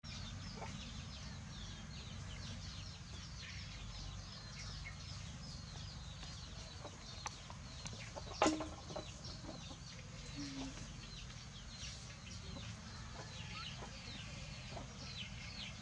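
Birds chirping in the background, many short falling chirps one after another, over a steady low hum. A single sharp knock comes about eight and a half seconds in.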